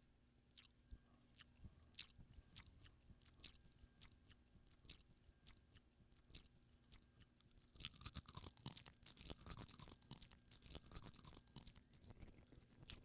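Faint scattered clicks and light knocks, then from about eight seconds in a denser crackling rustle, as a person settles in and handles small objects close to the microphone.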